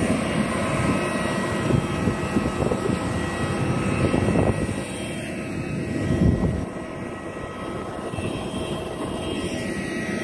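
Jet airliner running on the airport apron: a steady rush of engine noise with thin, steady whining tones. A couple of louder low rumbles come around the middle.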